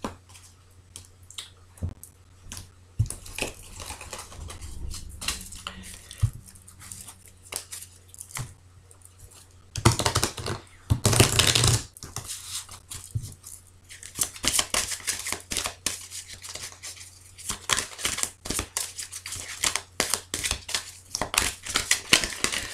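A deck of cards handled and shuffled by hand: a patter of card flicks and slides over a velvet cloth, with louder bursts of shuffling about ten to twelve seconds in and a dense, rapid run of card flicks in the last third.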